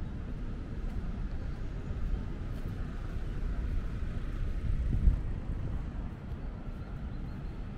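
Wind buffeting a small camera's microphone: a fluctuating low rumble that swells in a gust about five seconds in, with faint open-air city ambience beneath.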